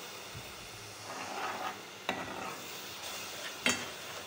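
Spoon stirring a masala of garlic-ginger paste and ground spices frying in oil in a metal pot: a steady sizzle with the spoon scraping, and two sharp knocks about two seconds in and near the end. The masala is being fried (bhuna) to cook off the raw garlic-ginger smell.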